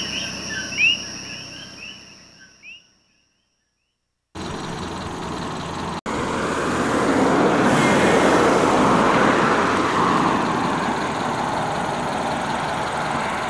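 Coquí frogs calling in short rising chirps over a steady insect trill, fading out within the first three seconds. After a second of silence, a vehicle's engine and road noise run on steadily, with a brief dropout.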